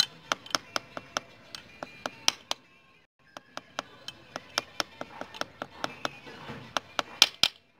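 Quick metal-on-metal taps, about four a second, as a steel rod drives a crankshaft oil seal into its bore on the magneto side of a motorcycle engine's crankcase. There is a brief pause about three seconds in, and the two loudest taps come near the end.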